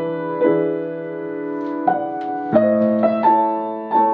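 Solo piano playing a slow, gentle passage of single notes and chords, each struck and left to ring, with a new note or chord about every half second to a second.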